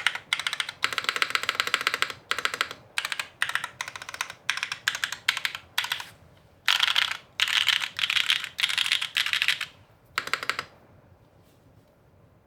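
Typing on a TGR Shi custom mechanical keyboard with vintage Cherry MX Black-type switches, an aluminium top-mount plate and GMK Dolch keycaps: quick runs of keystroke clacks in bursts. The typing stops about two seconds before the end.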